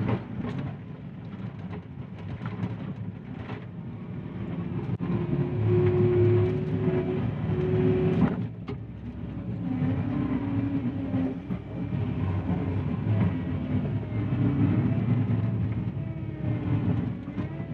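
John Deere 333E compact track loader's diesel engine working hard under load on a steep climb, its sound swelling and easing, with a steady whine for a few seconds near the middle. Several sharp clanks from the machine along the way.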